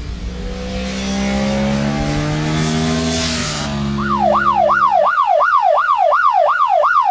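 A motorcycle passes by: its engine note rises as it approaches, is loudest about three seconds in, and drops as it goes past. From about four seconds in, a yelping siren sweeps up and down about three times a second.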